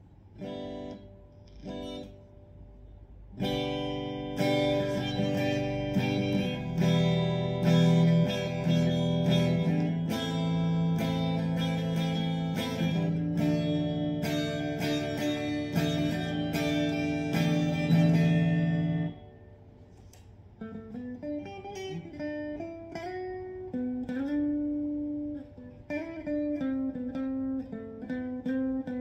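Gibson Les Paul Faded electric guitar played through a Vox valve combo amp via a Planet Waves Circuit Breaker cable, as a tone test. A few picked notes lead into loud strummed chords that stop abruptly about two-thirds of the way in. A quieter single-note melodic line follows.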